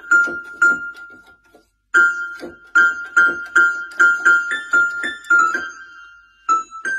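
Electronic keyboard played by a cat's paw: a string of high single notes, mostly the same key struck over and over at an uneven pace, with a brief pause about two seconds in.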